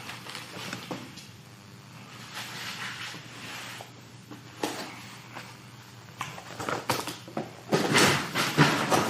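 Handling noises in a small room: scattered knocks and rustling, busiest and loudest in the last second or so, over a steady low hum.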